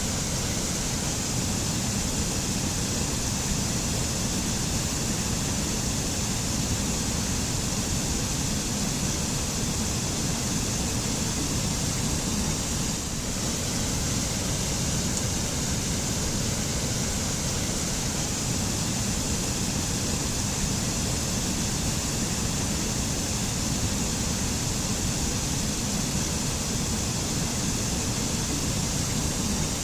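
Waterfall: a steady, unbroken rush of falling water, deep underneath with a bright hiss on top.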